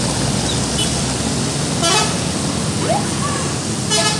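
Steady road traffic noise with two short vehicle horn toots, one about two seconds in and another near the end.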